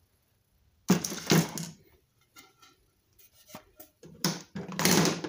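Wooden boards being handled on a metal cart top: a sharp wooden knock and scrape about a second in, a few faint clicks, then a longer scraping knock near the end as a 2x4 is set down.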